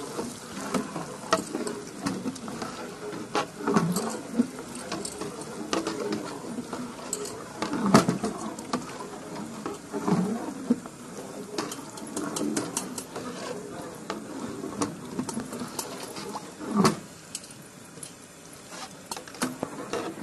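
A long-handled flat metal ladle stirring a thick rice sweet in a large aluminium pot. It scrapes along the pot and clicks and knocks against its sides, with several louder knocks, as the mixture is kept moving so it does not stick to the bottom.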